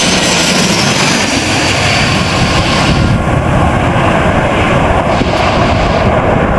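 Twin-turboprop airliner's engines running loud and steady, a dense roar of engine and propeller noise; the high hiss drops away about three seconds in.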